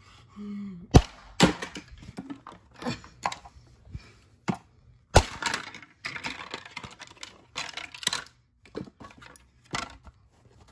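Plastic housing of a Panasonic electric stapler being broken apart: a series of irregular sharp cracks and knocks, with crunching plastic between some of them.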